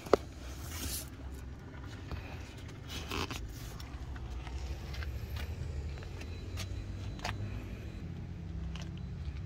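A car engine idling with a steady low rumble. There is a sharp click just after the start, and a few fainter clicks and scrapes later.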